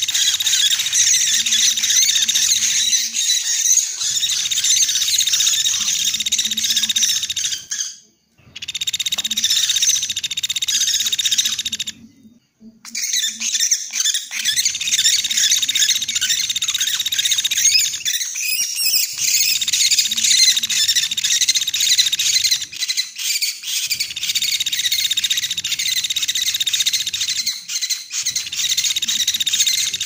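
Pelatuk beras woodpeckers calling in a dense, continuous high-pitched chatter, played as a bird-trapping lure call. The calling breaks off briefly twice, about a third of the way in.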